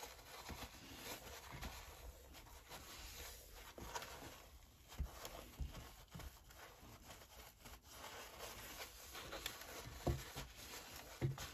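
Tissue rubbing and wiping inside the plastic brew-unit compartment of a Smeg bean-to-cup coffee machine, sweeping coffee grounds out onto paper, with a few light knocks.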